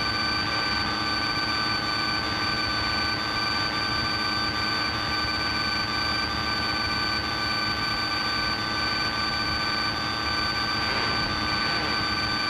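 Piper Cherokee's piston engine and propeller droning steadily in flight, heard inside the cabin, with several steady high-pitched whine tones over the drone.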